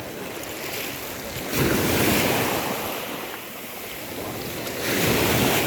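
Sea waves washing onto the shore, two swells of surf about three seconds apart, with wind buffeting the microphone.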